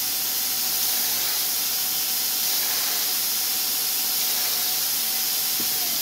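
A 2x72 belt grinder running with a steady hiss as a machined metal part is held against the belt to grind the burr off its bored holes. A faint hum falls in pitch near the end.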